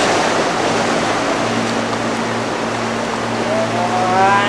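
Surf washing and churning among shoreline rocks, with a steady low hum from about a second in. Near the end a long drawn-out vocal call begins, rising slightly and holding.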